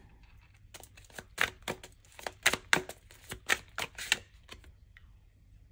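Deck of cards being shuffled by hand: a run of quick, irregular clicks and taps as the cards slap against each other, stopping about four seconds in.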